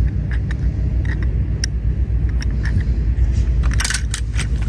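Small metal die-cast toy cars being handled, with light clicks and clinks and a quick rattle of several clinks near the end as they knock together in a plastic basket, over a steady low rumble.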